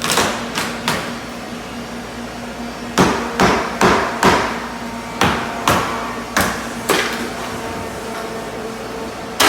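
Hammer blows on house construction work, irregularly spaced: three near the start, then a run of about ten between three and seven seconds in, each with a short ring, over a steady low hum.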